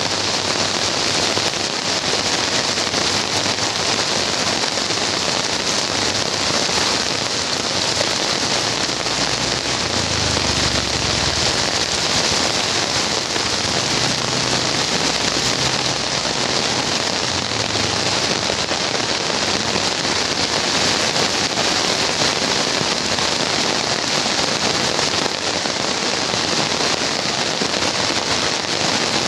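Heavy tropical rain pouring steadily, hissing and splashing on a paved street that is running with water.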